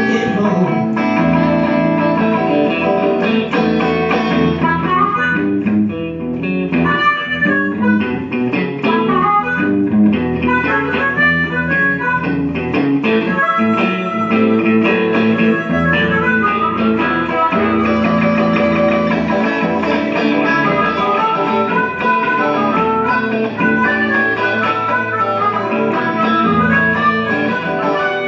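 Electric blues played live as an instrumental break without singing, led by guitar.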